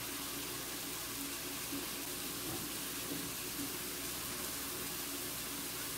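Steady hiss of a pot of shredded chicken filling cooking on a gas stove over raised heat.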